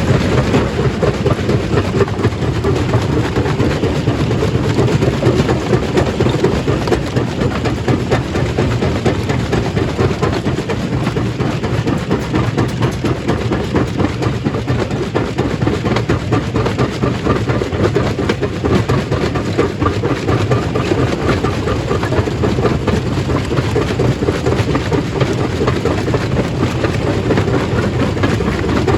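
Stone crusher running steadily, with a continuous dense clatter of rock being broken.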